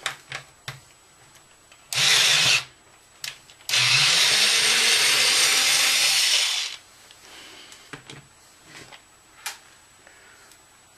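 Battery-powered drill-driver fitted with a Phillips bit, unscrewing small laptop screen screws. It runs briefly about two seconds in, then for about three seconds from about four seconds in, with small clicks of handling in between.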